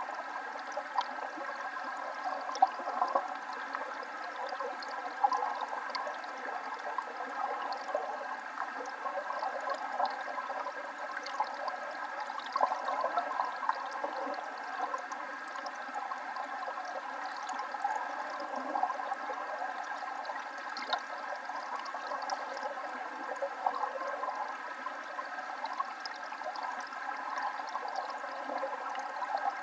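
Waterfall running: an even rush of falling and splashing water with small scattered splashes.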